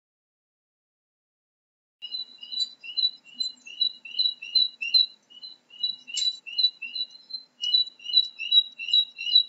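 A small animal calling: short, high chirps repeated nearly three times a second, starting about two seconds in.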